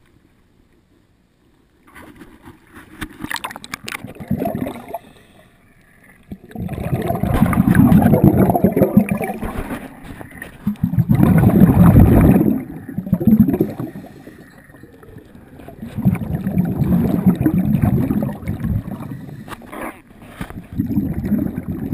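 Water sloshing and gurgling against a boat's hull, heard from a camera underwater. It comes in loud swells every few seconds after a quiet start.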